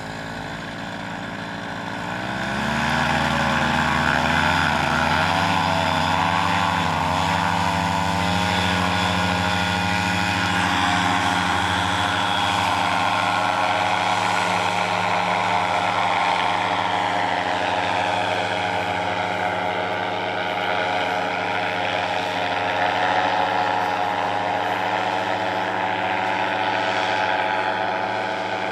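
Powered paraglider's engine and propeller revving up about two seconds in, wavering briefly, then running steadily at high throttle.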